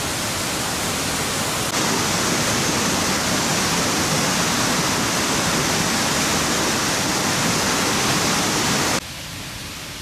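Rushing water of a rocky mountain river, then a waterfall cascading over boulders, louder from about two seconds in. Near the end it drops abruptly to a much quieter, more distant rush of water.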